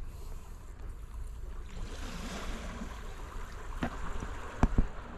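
Wind rumbling on the microphone over the wash of the sea against rocks, with a few sharp knocks near the end, the loudest two close together.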